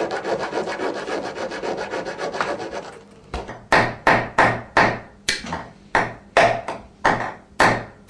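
Freshly cut metal key blank being dressed smooth by hand. Quick back-and-forth strokes come about eight a second for roughly three seconds, then slower separate strokes about three a second.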